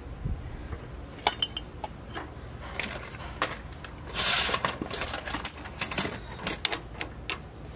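Light metallic clinks and rattles of the steel chain and threaded steel rod of an Andersen No Sway weight-distribution hitch as a red bushing is fitted onto the rod, with a short scraping rasp a little past the middle.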